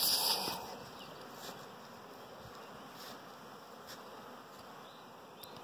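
Honeybees buzzing as they fly around the hives, a steady hum, with a brief rustle of handling at the start.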